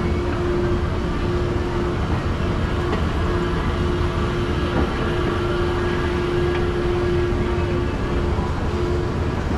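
Escalator running: a steady low rumble with a steady hum tone that drops out briefly a few times.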